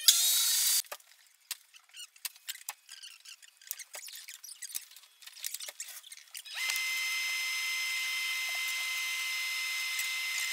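A brief loud rush at the start, then scattered light knocks and clicks of barn wood frame pieces being handled on a table saw top. About six and a half seconds in, a steady motor whine with a few fixed pitches starts and keeps running.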